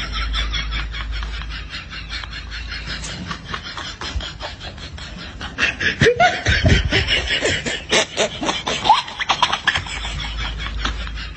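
A person laughing in a long run of quick, breathy snickers, getting louder from about six seconds in.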